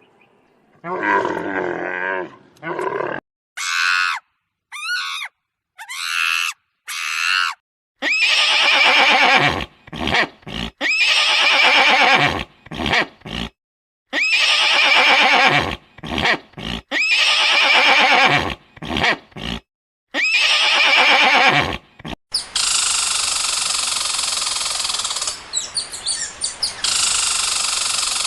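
A run of recorded wild animal calls, one animal after another: rough grunting calls, a few short high-pitched cries, a long series of repeated pitched calls, then a steady hissing sound near the end.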